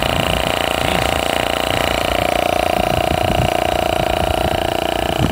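MotoMaster heavy-duty 12-volt portable air compressor running steadily while pumping up a tire, a constant even hum.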